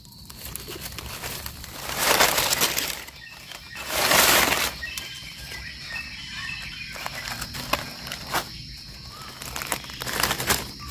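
Dry leaf litter crackling and rustling under hands, in two louder bursts about two and four seconds in, with light crackles between.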